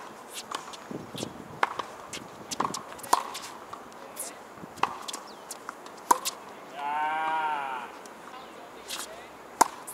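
Tennis balls struck with rackets and bouncing on a hard court: sharp pops at irregular intervals, roughly one a second. About seven seconds in, a wavering pitched sound lasting about a second.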